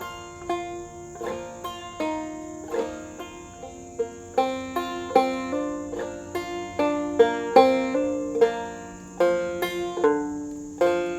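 Five-string banjo played clawhammer style and tuned low (f Bb F Bb C): a phrase of an old-time tune picked as a steady stream of bright plucked notes, with hammer-ons and drop-thumb notes.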